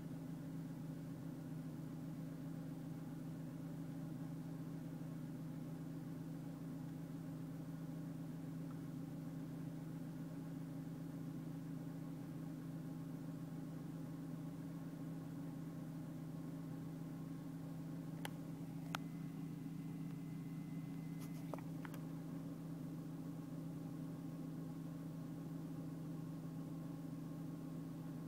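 BMW engine idling with its secondary air pump running, a steady drone. The owner reports that the rpm drops and the car shakes while the pump runs, a fault in the secondary air system. A few light clicks come about two-thirds of the way through.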